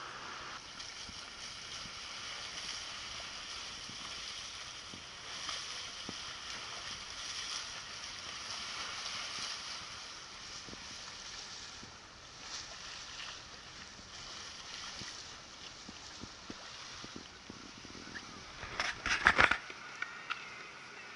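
Sea water rushing and sloshing past the hull of a sailing yacht under way under full sail, with a steady hiss of wind and waves. About 19 s in comes a short cluster of sharp knocks, the loudest moment.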